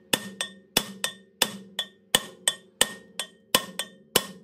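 Hammer repeatedly striking a stuck, rusted cast-iron rear brake rotor on a 2015 Ram 1500 to break it free of the hub, about three blows a second alternating heavier and lighter hits. Each blow leaves the rotor ringing with a metallic tone. The rotor does not come loose.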